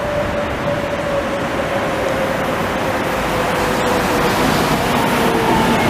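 Articulated street tram approaching on street track: a steady rumble of wheels and running gear with a faint whine that slowly drops in pitch, growing a little louder.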